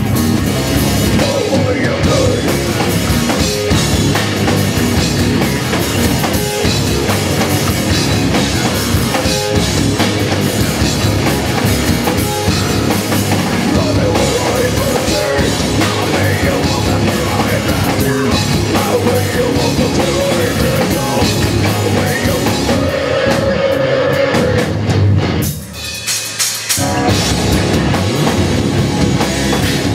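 Live rock band playing loudly: electric guitars, bass guitar and a drum kit. About 25 seconds in the band drops out for a second or so, then comes back in at full level.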